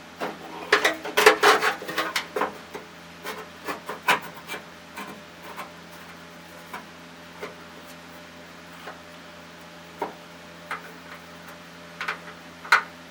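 Clicks, rubbing and scraping of a truck's dash light switch and its parts being handled and worked back into place by hand. The sounds come thick for the first couple of seconds, then as scattered clicks, with another burst near the end.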